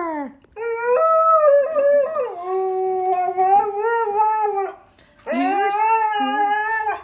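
Husky howling: a long, drawn-out howl that steps down in pitch about two seconds in, then after a short break a second long howl.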